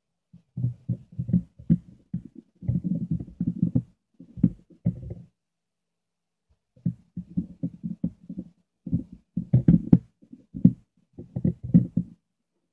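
Handling noise of hands fitting a battery and its snap-clip wires into a multimeter's plastic battery compartment: irregular dull bumps and rubs against the table. They stop for about a second and a half midway, then resume with a few sharper clicks about ten seconds in.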